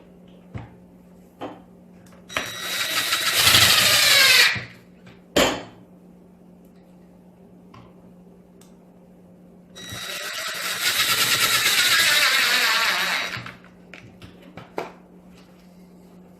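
Power drill driving screws into holes that are not pre-drilled: two runs of a few seconds each, about halfway apart, the motor's whine sinking in pitch as each screw is driven in. A sharp knock comes just after the first run.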